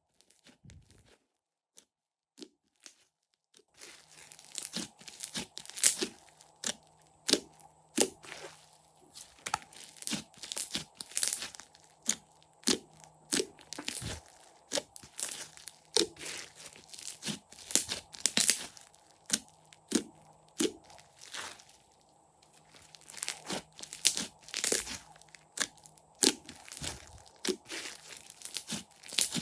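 Crunchy slime being squeezed and pressed by hand, giving a dense, irregular run of crunching pops and crackles. It starts with a few sparse clicks and turns into steady crunching about four seconds in.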